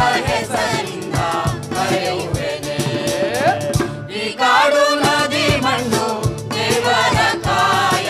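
Soundtrack music: a Kannada theatre song sung by a group of voices over percussion, with a brief break about four seconds in.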